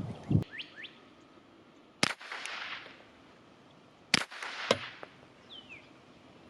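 Glock 17L 9mm pistol fired twice, about two seconds apart, each shot trailing off in a short echo, with a sharper, thinner crack half a second after the second shot. Birds chirp briefly in the background.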